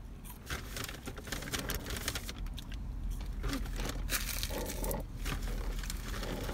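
Close-miked eating noises and the crinkle of fast-food paper and cup packaging: a string of small clicks, smacks and rustles.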